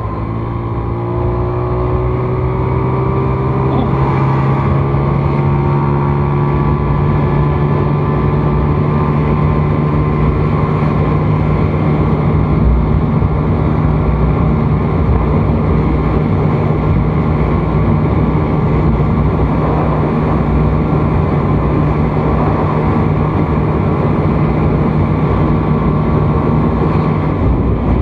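Yamaha Fino scooter's single-cylinder engine running under way, picking up speed over the first few seconds and then holding a steady cruising note, with wind rushing over the microphone.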